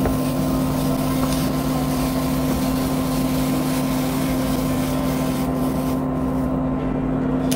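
Steady hum of a kitchen fan, a low drone that holds one pitch, with faint scrapes of a plastic spatula on a non-stick frying pan as a thin crepe is rolled up.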